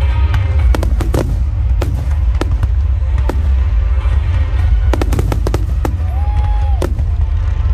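Firework display: aerial shells and comet fans going off in quick, irregular bangs and crackles, with music playing underneath.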